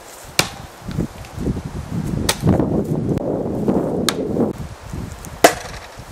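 Thrown blades striking wood: four sharp thwacks a second or two apart, the last the loudest, with a rustling stretch in the middle.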